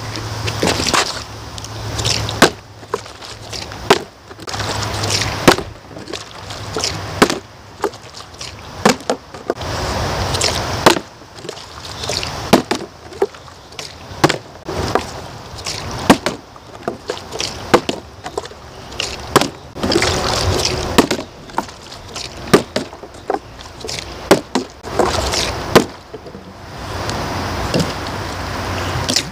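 Plastic water bottles being flipped, caught and landed again and again: many sharp, irregular knocks of bottle on hand and ground, some in quick succession, with water sloshing inside. Wind rumbles on the microphone at times.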